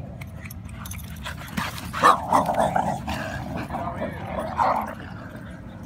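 Dogs barking and growling in rough play, a run of short barks and growls starting about two seconds in, loudest at the start, and stopping about a second before the end.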